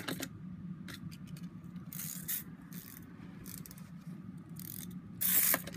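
Clockwork spring motor of a wind-up toy UFO running fast, a steady whirring hum with light scattered clicks. A brief louder rustle comes near the end.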